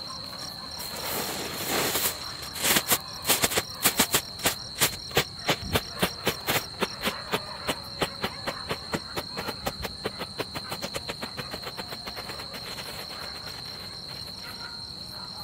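Mercury 'light' strobe firework going off: a short hiss, then a long run of sharp crackling pops, a few a second, which grow fainter and die out near the end. Crickets chirp steadily throughout.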